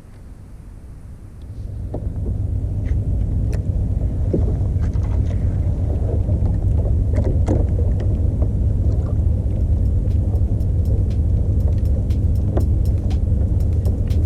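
Small 2-horsepower outboard motor on a kayak, running under way: it picks up over the first couple of seconds, then holds a steady low drone, with scattered light knocks on top.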